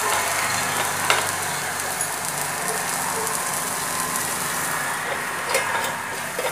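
Long beans and potato wedges sizzling as they fry in oil in a nonstick pan, stirred with a wooden spatula that knocks against the pan a couple of times. Near the end a steel lid clinks onto the pan.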